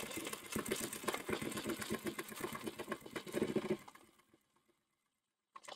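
Sewing machine stitching free-motion ruler quilting, the needle running in a rapid, even rhythm of strokes, then stopping abruptly about four seconds in. Two faint clicks come near the end.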